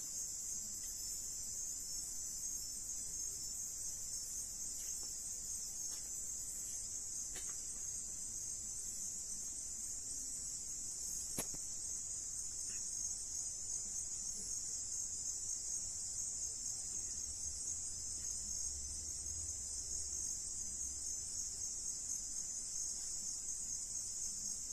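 Steady night chorus of crickets, a continuous high-pitched trill. A single click comes about eleven seconds in.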